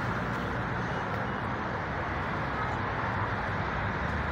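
Steady road traffic noise of cars on a city street.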